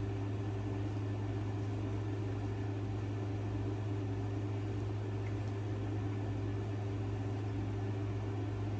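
A steady, unchanging low hum with a few fainter higher tones over it.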